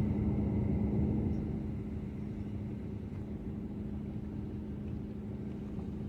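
A vehicle running: a steady low rumble with a constant hum.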